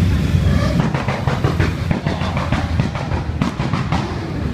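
A procession of motorcycles riding past, their engines making a steady low rumble. From about a second in, a nearby bike's exhaust adds a quick, even pulsing.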